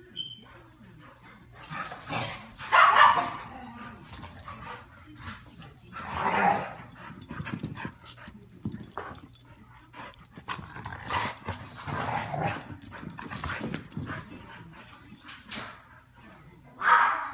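Two dogs playing together, barking and yipping several times, loudest about three seconds in and again near the end.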